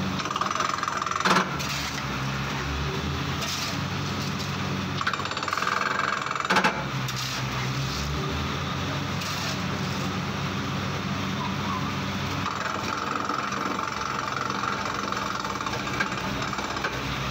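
Compact borewell drilling rig running steadily while drilling, with rock cuttings blown up out of the hole around the drill rod. Two sharp knocks stand out, about a second in and again near seven seconds.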